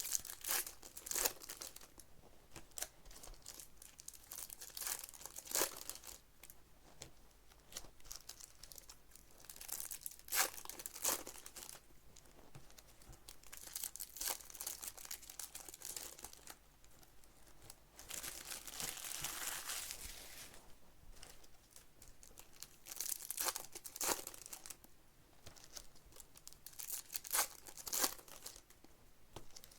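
Trading card pack wrappers being torn open and crinkled, in a run of sharp rustles. There is a longer continuous tearing rustle about two-thirds of the way through.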